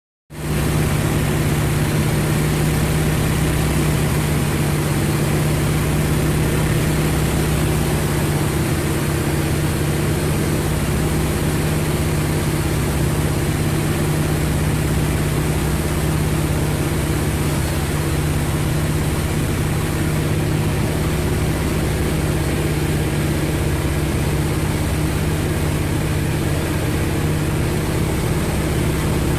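North American T-28 Trojan's radial piston engine and propeller running with a steady, even drone that cuts in abruptly just after the start.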